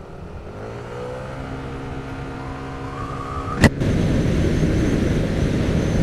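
Scooter engine pulling away, its pitch rising over the first second or so and then holding steady. A sharp click comes about three and a half seconds in, followed by louder wind and road noise at riding speed.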